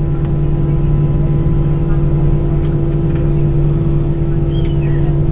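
Airbus A320 jet engines running steadily during takeoff, heard inside the passenger cabin as a loud, even drone with a deep fixed hum and higher steady tones over a rushing rumble.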